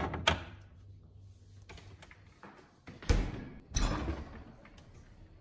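Glass jar set down on a refrigerator door shelf with two sharp knocks. A loud low thud about three seconds in, with another knock just after, from the refrigerator door being swung shut.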